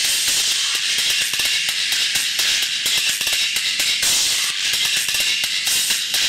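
Music played through a KSN 1165A piezo horn tweeter driven at the amplifier's maximum output, about 76.6 volts peak to peak. It comes out thin and nearly all treble with very little bass, and holds up without distortion or breakdown.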